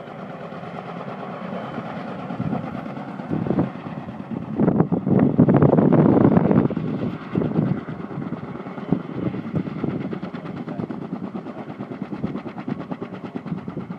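Kaman K-MAX helicopter with intermeshing twin rotors and a single turboshaft engine, its rotors beating steadily as it comes in low to land. A louder rushing stretch rises about five seconds in and lasts a couple of seconds.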